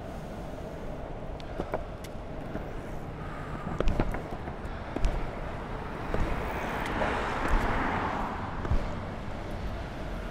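Longboard wheels rolling over asphalt with a steady rumble, a few sharp clicks as they cross joints and bumps, and the scuff of a foot pushing off, with street traffic around.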